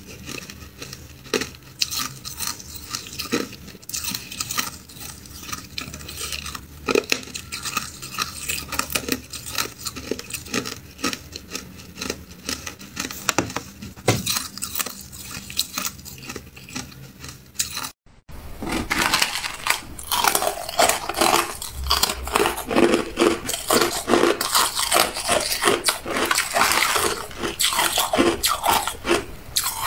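Ice being bitten and crunched in the mouth, close to the microphone, with scattered sharp cracks. After a brief cut-out about two-thirds through, the crunching becomes denser and louder as small pieces of crumbly carbonated ice are chewed.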